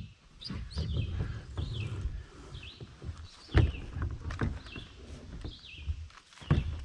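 Knocks and rubbing from an Old Town Predator PDL plastic fishing kayak being pushed up onto a car's roof rack, with one sharp knock about three and a half seconds in. A bird repeats a short chirping call in the background.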